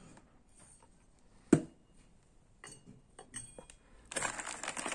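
Parts of a Bafang mid-drive kit being handled: the steel chainring gives a single sharp metallic clink about a second and a half in, followed by a few light knocks, then plastic packaging crinkles from about four seconds on.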